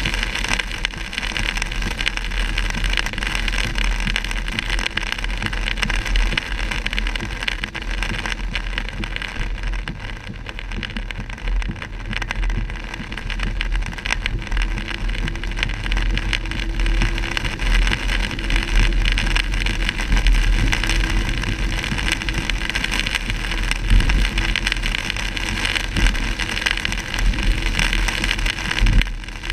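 Car driving on a rain-soaked road, heard from inside the cabin: a steady hiss of tyres on the wet surface over a low road rumble.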